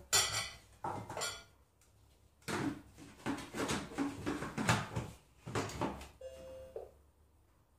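Clattering and knocking as a glass bowl is set down and the lid is fitted and locked onto the stainless mixing bowl of a Monsieur Cuisine Connect kitchen robot. About six seconds in there is a single short electronic beep.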